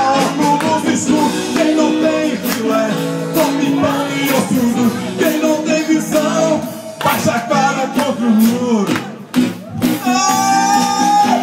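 Music with a steady beat and a singing voice.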